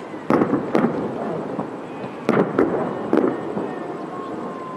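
Aerial firework shells bursting: five sharp bangs, a pair near the start and three more about two to three seconds in, each followed by a short rumbling tail.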